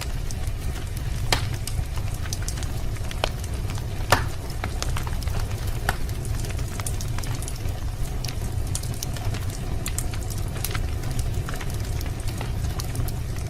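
Wood fire crackling in a fireplace: irregular sharp snaps and pops over a steady low rumble, with the loudest pops about a second and about four seconds in.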